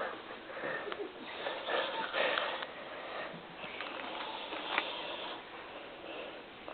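A man snoring in his sleep: a few noisy breaths in a row, each a second or so long.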